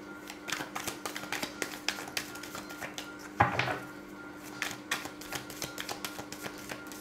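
A deck of tarot cards being shuffled by hand, the cards clicking and flicking against each other in quick, irregular runs, with one louder slap about three and a half seconds in. A faint steady hum sits underneath.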